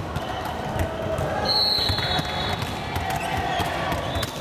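Volleyballs being struck and bouncing on a wooden sports-hall floor during a warmup: many irregular thuds and slaps from several balls at once in a large hall. A brief high squeak comes about a second and a half in.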